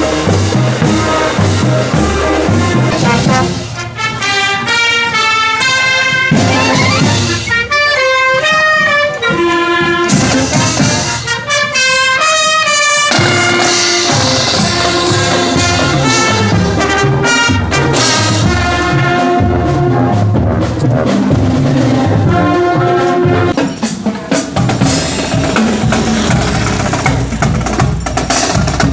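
Marching band playing: brass instruments such as trumpets and trombones carry a melody over a steady drum beat.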